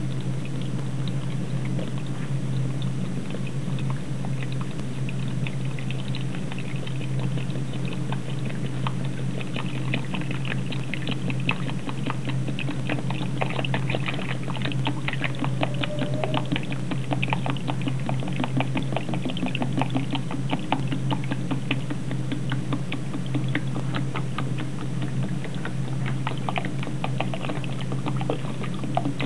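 Water pouring from a thin 2-litre plastic bottle into a glass bowl of instant-snow powder, with a dense run of small crackles and clicks as the bottle crinkles and the water splashes, thickest in the middle.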